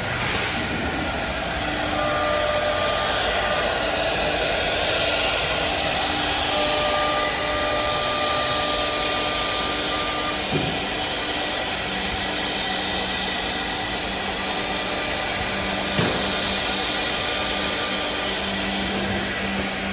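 Four-head CNC woodworking drilling and milling machine running: a steady hiss of spindles and cutting, with motor whine tones that come and go as the heads work and a lower hum from about halfway. Two short knocks, one about halfway and one later.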